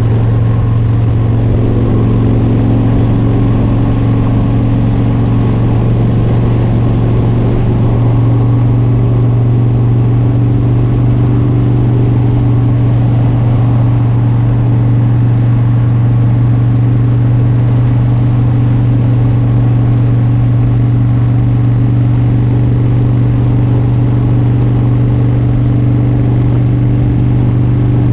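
Motorcycle engine running steadily at a constant pitch while riding, over a steady rush of wind and road noise.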